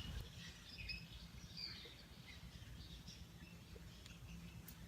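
Faint, scattered bird chirps over a low outdoor background rumble, with a faint steady low hum underneath.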